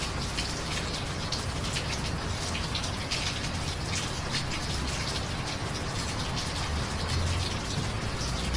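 Steady rain falling, with many individual drops splattering. A low, even rumble runs underneath.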